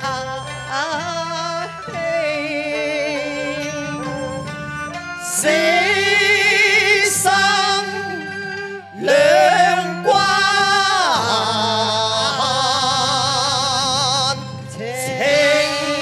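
Cantonese opera song sung as a duet by a man and a woman, long notes held with a wide vibrato and sliding between pitches, over instrumental accompaniment.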